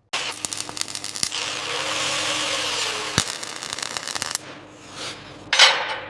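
A power tool running with a steady whirring hiss and a few clicks for about four seconds, then stopping; a short loud burst of noise follows near the end.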